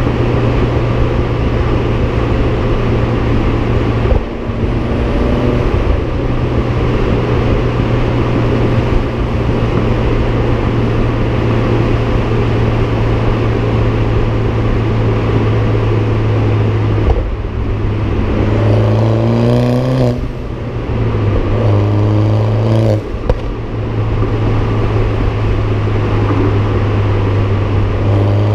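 BMW F20 116i's Supersprint aftermarket exhaust droning steadily while the car drives along, then the car accelerating in the last third, the exhaust note rising in pitch with short breaks at two or three gear changes.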